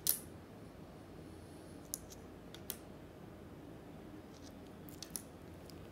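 Small wooden stamp-game tiles set down one by one on a tabletop: a few light, sharp clicks, the loudest at the very start and a quick pair near the end.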